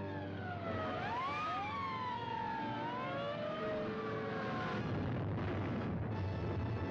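Several sirens wailing at once, their pitches rising and falling and overlapping, over a steady low rumble, dying away about five seconds in. It is an old 1950s film trailer soundtrack with dulled highs.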